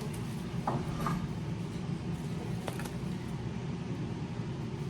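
Steady low background rumble, with a few faint brief clicks or rustles.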